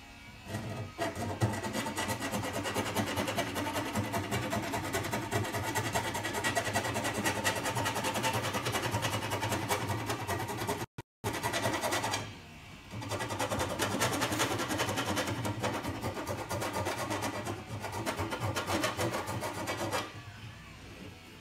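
Steel transmission separator plate being scraped and rubbed by hand at a workbench: continuous fast scraping strokes, working over the plate after its access hole was filed open. The scraping breaks off abruptly a little past the middle, then resumes and stops shortly before the end.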